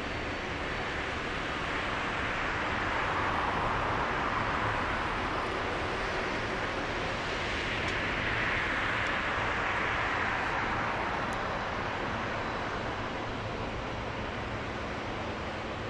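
Boeing 767-300 jet engines running at low power as the airliner taxis along the runway. A steady rushing hiss with a jet whine that swells twice and eases off.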